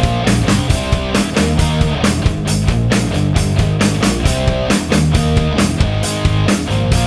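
Loud music with a steady, driving beat.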